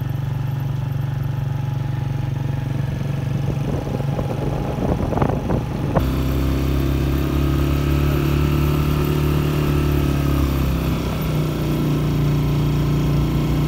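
A vehicle engine running steadily as it drives along a road. About six seconds in, the engine sound changes abruptly and a deeper hum comes in.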